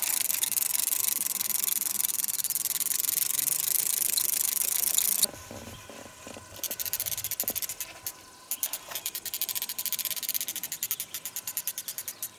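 A steady hiss that cuts off suddenly about five seconds in, followed by a spinning fishing reel being cranked while playing a hooked trout, its rhythmic clicks speeding up to several a second near the end.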